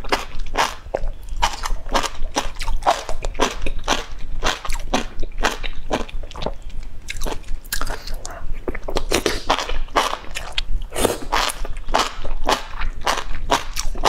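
Close-miked eating sounds: enoki mushroom strands in broth being slurped, bitten and chewed, a run of wet smacking sounds about two or three a second.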